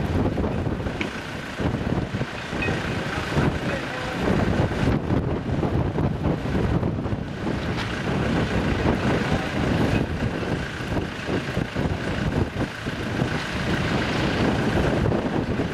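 Wind gusting across the microphone: an uneven rumbling noise that rises and falls.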